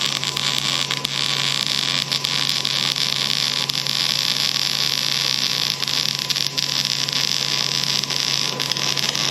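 Wire-feed (MIG) welder arc laying a continuous bead: a steady crackling sizzle with irregular pops, over a low steady hum.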